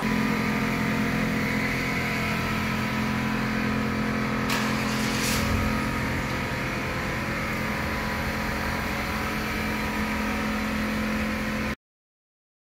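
Steady mechanical hum made of several held tones, with a couple of brief clicks around the middle; it cuts off abruptly near the end.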